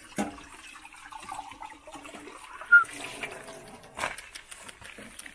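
Water running steadily, with a knock just after the start, another about four seconds in, and one short, high squeak about halfway through.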